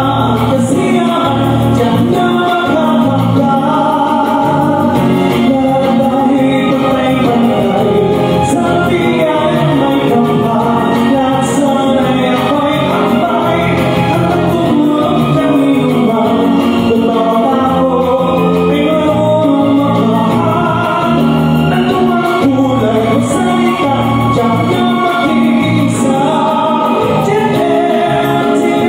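A man singing into a handheld microphone over backing music, amplified through a PA system.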